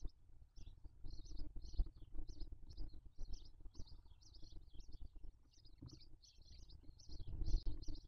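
Bird chirping: quick clusters of short high notes, two or three a second, repeating steadily. Underneath are low knocks and rumbling, loudest near the end.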